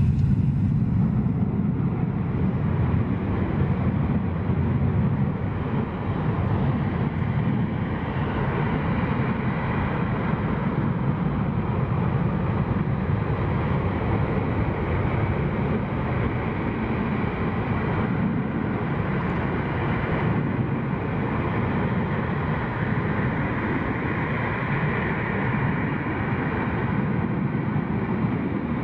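Two Panavia Tornado jets' RB199 turbofan engines running steadily as the aircraft hold on the runway before take-off: a loud, even jet rumble.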